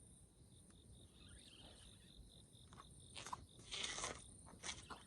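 Faint, steady high-pitched insect trilling, with a few short scratchy rustles in the second half, the loudest about four seconds in.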